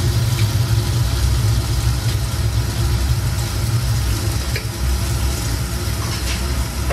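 Steady low rumble and hiss from a gas stove burner running under a wok of tofu simmering in sauce, with a few faint light taps as seasoning is added.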